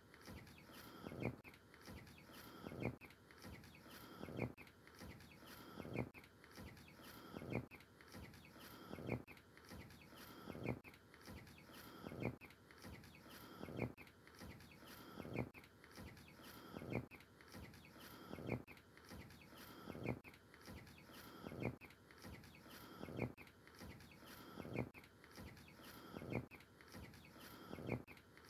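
Three-week-old farm birds calling and clucking, with a strong, regular beat of sounds about every second and a half.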